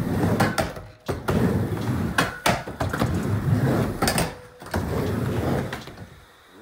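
Skateboard wheels rolling on a mini ramp: three passes back and forth, each a rumble that swells and fades, with sharp clacks of the board at the turns. The rolling stops about a second before the end.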